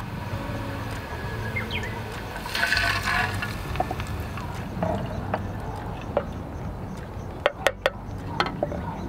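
Water poured from a measuring bottle into an aluminium mess tin of hot garlic-and-chili oil, hissing as it hits the oil, with scattered crackles and three sharp pops of spattering oil near the end.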